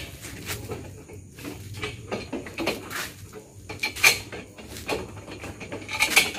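Scattered clinks and knocks of hardware being handled on a speaker cabinet as it is fitted by hand, the sharpest about four seconds in and again near the end, over a low steady hum.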